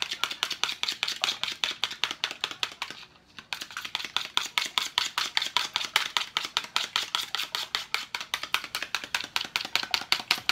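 Raw eggs being beaten briskly in a small plastic tub: a fast, even clicking of the utensil against the tub's sides, several strokes a second, with a brief pause about three seconds in.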